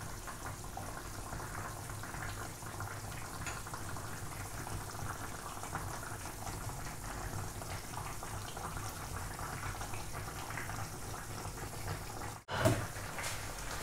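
Pan of carrot and onion broth simmering, a steady bubbling with small pops. Near the end the sound drops out for an instant and a short, louder knock follows.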